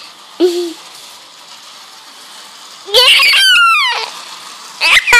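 A toddler's voice: a short sound about half a second in, then a loud, high squeal about three seconds in that falls in pitch over roughly a second.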